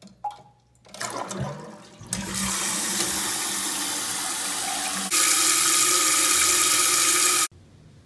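Kohler toilet flushing: after a few light clicks of the trip lever, the tank water rushes out in a loud steady flow that grows louder about halfway through and cuts off suddenly.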